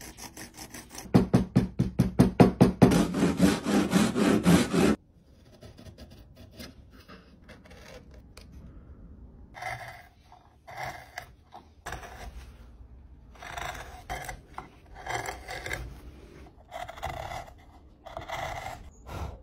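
A carving gouge cutting into a wooden board to hollow a spoon bowl, in a series of short separate scraping cuts. Before that, the loudest part: a few seconds of fast rhythmic scraping that stops abruptly.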